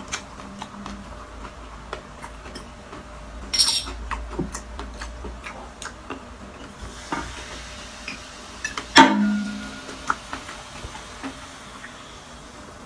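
Eating sounds close to the microphone: chewing of crispy fried food with scattered clicks and clinks of a spoon and dishes. There is a short crunchy burst about three and a half seconds in, and the loudest clink comes about nine seconds in.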